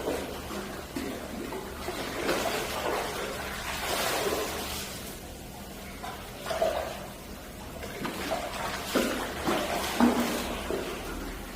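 Water splashing and trickling in an indoor saltwater fishing pond, with irregular louder splashes over a steady running-water hiss.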